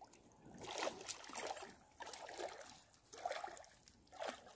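A person wading through shallow lake water, each step sloshing and splashing, about one a second.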